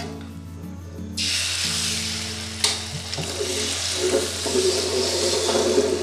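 Beaten egg poured into hot oil in a wok, breaking into a loud sizzle about a second in and frying steadily after that. A single sharp knock is heard a little later.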